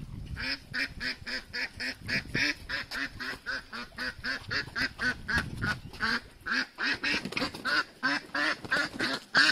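A flock of domestic ducks quacking, a steady run of short quacks at several a second.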